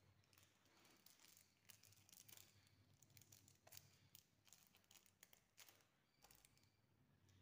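Faint crinkling and rustling of a sky lantern's thin paper and a plastic-wrapped fuel cell being handled, in irregular small crackles.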